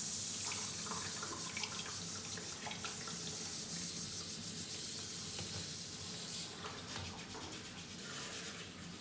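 Handheld shower head spraying water over a cat and into a plastic tub: a steady hiss of running water with scattered small splashes.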